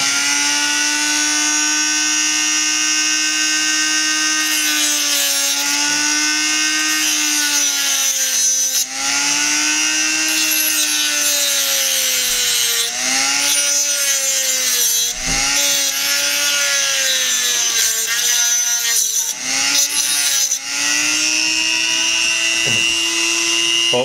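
Dremel rotary tool with a cut-off disc running at high speed, cutting through the metal rails on a Zippo hand warmer's top. Its steady whine sags in pitch each time the disc bites into the metal and climbs back as it eases off, several times, over a gritty grinding hiss.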